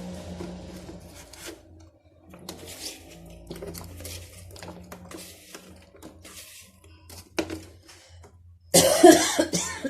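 Quiet kitchen handling: scattered small clicks, clinks and rustles of vegetables and utensils being packed into a jar, with a loud sudden noise about nine seconds in.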